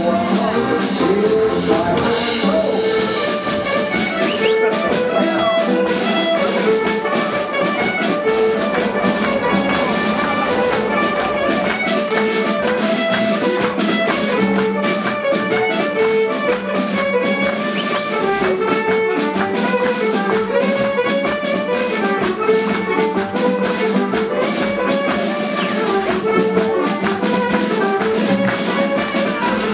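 Instrumental band music with brass and drums, a melody moving over a steady held low note.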